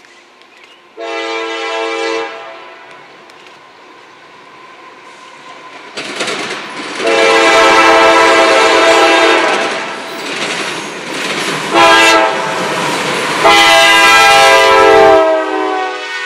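CSX diesel locomotive's air horn sounding four blasts, long, long, short, long, the standard signal for a grade crossing, as the freight train approaches. The rumble of the locomotive and its wheels on the rails grows under the last three blasts, which are the loudest.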